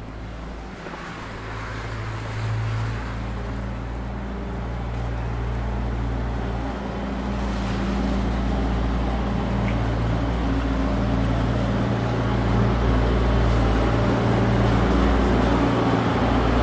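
Steady low mechanical hum from a running motor or engine, growing gradually louder.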